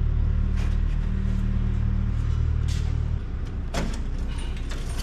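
A steady low motor hum that drops in level about three seconds in, with a few light clicks and rustles over it.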